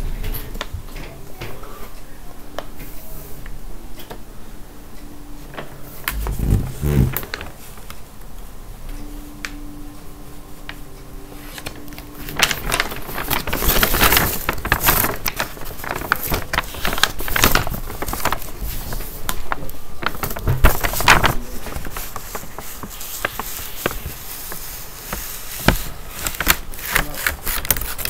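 A large sheet of paper rustling and crinkling as it is handled close to the microphone. It is sparse at first with a couple of low bumps, then turns to dense, loud crackling from about halfway through.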